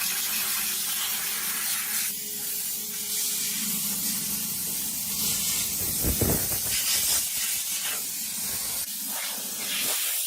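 A loud, steady hiss of a spray or air jet that starts abruptly.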